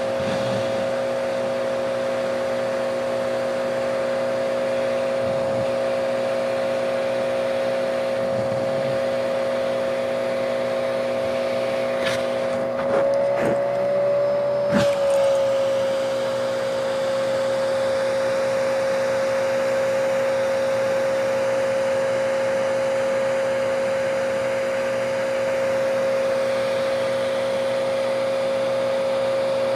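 Vacuum cleaner motor running with a steady whine through the hose wand. About halfway through its pitch rises slightly for a couple of seconds, with a few sharp knocks, then settles back.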